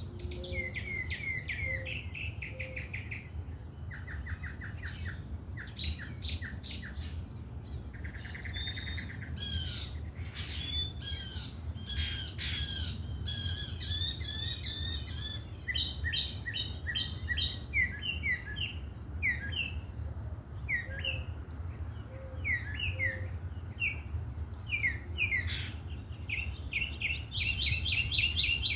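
Birds chirping in quick, varied series of short notes and trills throughout, over a low steady rumble.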